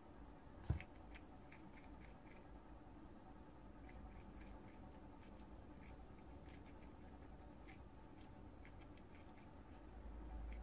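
Prairie dog chewing fresh grass blades: faint, irregular crunchy nibbling clicks. One sharp thump stands out under a second in.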